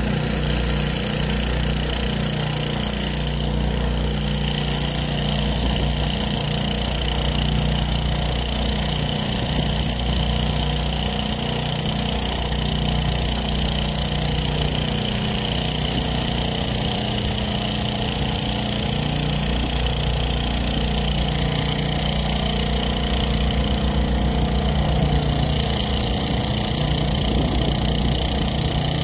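A motor running steadily at one unchanging low pitch, a continuous hum.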